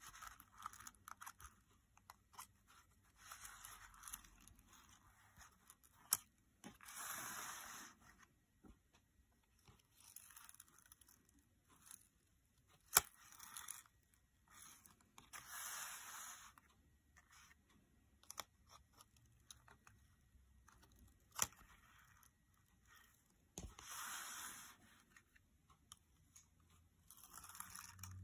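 Stiff cardstock panels of a handmade exploding box being flipped open and folded back by hand: short papery rustles and scrapes of card sliding on card every few seconds, with a few sharp clicks in between.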